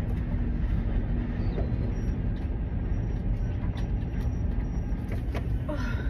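Strong storm wind of around 40 mph buffeting an RV: a heavy, steady low rumble with scattered light rattles.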